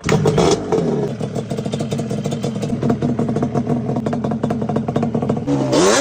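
Yamaha Banshee 350's twin-cylinder two-stroke engine. It blips briefly at first, runs steadily at a fast idle, then revs up near the end.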